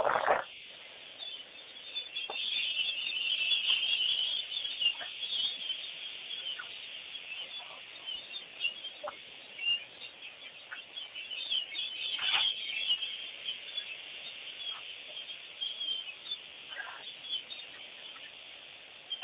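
A chorus of wild birds chirping and calling without a break, busiest a couple of seconds in, with a few short, louder calls right at the start, about twelve seconds in and near the end.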